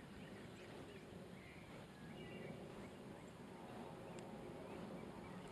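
Quiet outdoor lakeside ambience: a faint steady hush with a few soft, short bird chirps about two seconds in and a faint low hum coming up in the second half.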